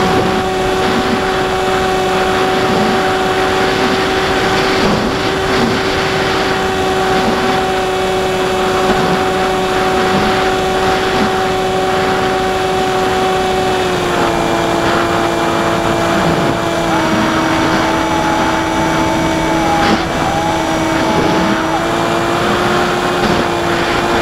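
Electric motor and pusher propeller of an AXN Floater Jet RC plane whining steadily in flight, heard from its onboard camera over a steady hiss. The pitch steps down slightly about halfway through and wavers a little after that.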